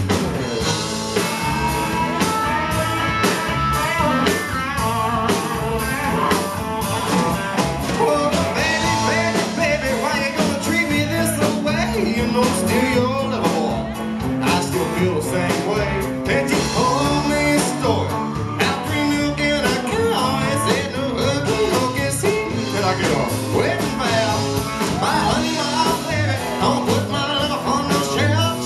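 Live rock and roll band playing: guitars and drums over a steady beat, with a man singing.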